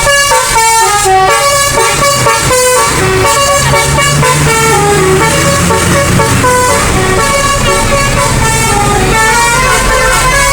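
Telolet basuri musical air horn on a bus playing a tune of stepped multi-tone notes: a quick run of notes, then longer held chords. The bus's engine runs underneath.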